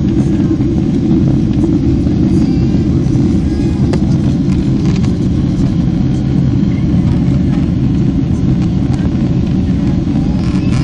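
Steady low rumble of cabin noise inside a Boeing 767-300ER airliner in descent: engine and airflow noise heard from a window seat over the wing.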